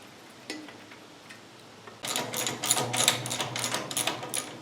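Ratchet wrench tightening a bolt: a single faint click about half a second in, then a fast, dense run of ratcheting clicks from about two seconds in.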